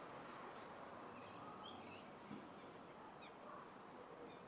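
Near silence with faint background hiss, broken by a few short, high bird chirps in the distance.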